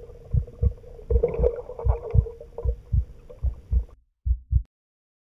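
Heartbeat sound effect: a steady lub-dub double thump at about 80 beats a minute over a faint hum. The hum stops about four seconds in, and one last beat follows.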